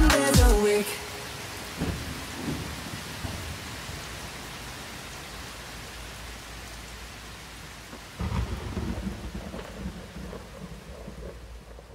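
Heavy rain falling on a street, a steady hiss. A low rumble of thunder swells about eight seconds in and fades away.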